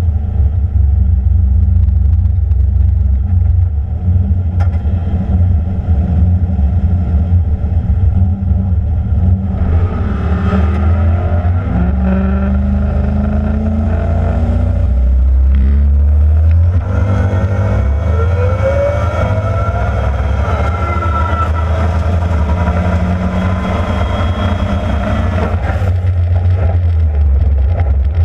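Turbocharged LS V8 of a fourth-generation Camaro, heard from inside the cabin: a steady rumbling idle, then the engine is revved about ten seconds in and again, longer, from about seventeen seconds, its pitch rising and falling, before it settles back to idle near the end.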